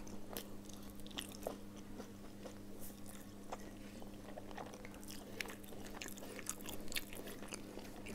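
Close-up chewing and eating sounds of a person eating rice and curry by hand: irregular small clicks and crunches from the mouth, over a steady low hum.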